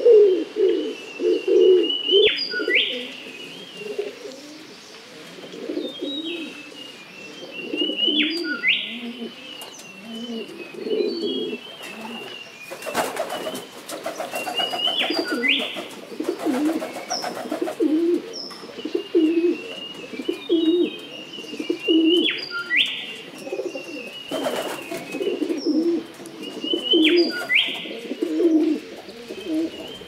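Pigeons cooing steadily in low, soft notes, with a songbird's short high call coming back every few seconds above them.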